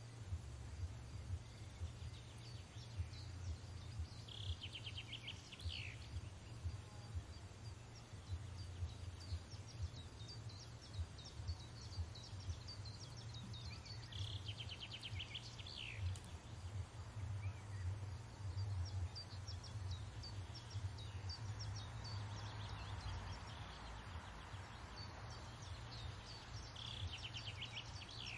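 Faint birdsong ambience: scattered high chirps, with a falling trill repeating about every ten seconds, three times, over a low steady rumble.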